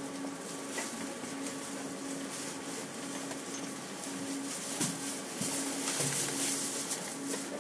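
Uijeongbu Light Rail car standing at a station: a steady hiss of onboard equipment with a low hum that cuts in and out every second or so, and a few faint clicks.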